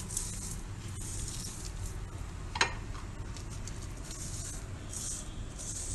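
A lemon half coated in salt and red chili powder rubbed back and forth over a roasted corn cob: repeated scratchy rubbing strokes, with one sharp click about two and a half seconds in.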